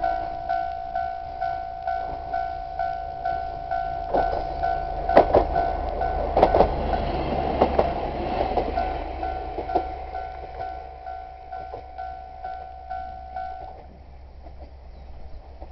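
Japanese railway level-crossing warning bell ringing about twice a second while a train passes, its wheels clacking over the rail joints between about four and ten seconds in. The bell stops near the end, leaving a quieter outdoor background.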